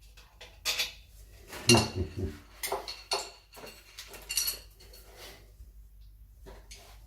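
Metal clinking and clattering of a screwdriver and screws against the metal mounting frame of a wall switch: a string of sharp knocks, some with a brief ring, loudest about two seconds in and dying out near the end.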